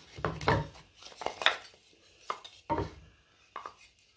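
Pre-cut wooden box side pieces clacking against each other and being set down on a board: several sharp knocks spread through, the loudest about half a second and a second and a half in.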